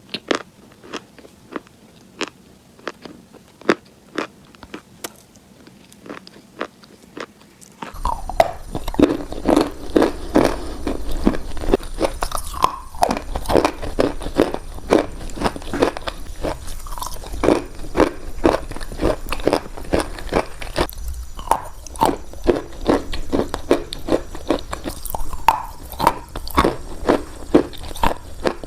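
Close-miked crunching bites and chewing of hard, dry chalk: sharp single crunches about once a second at first, then from about eight seconds in louder, rapid crunching chews over a low hum.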